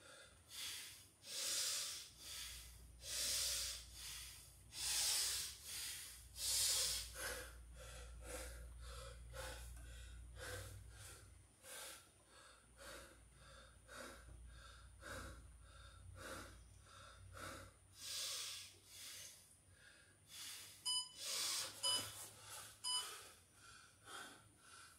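A man breathing hard, loud panting breaths every second or so, as he recovers between rounds of burpees. Near the end an interval timer beeps a few times about a second apart, signalling the end of the rest period.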